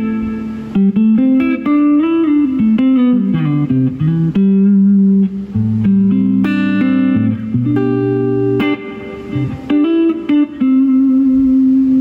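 Stratocaster electric guitar playing a clean phrase of single notes and chords through a Laney LF60-112 Lionheart Foundry 1x12 combo amp, set to 1-watt mode with the reverb turned up. It ends on a held note.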